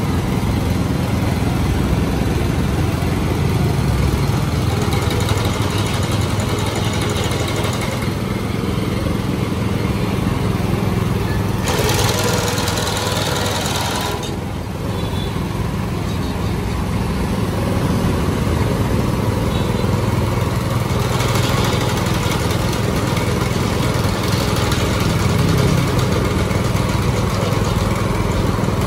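Walk-behind sickle-bar grass mower's 7 HP engine running steadily as the machine is pushed along. A short burst of hissing noise comes about twelve seconds in.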